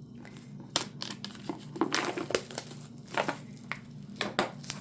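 Plastic shrink wrap being torn open and crinkled off a boxed album, a string of irregular crackles and rustles.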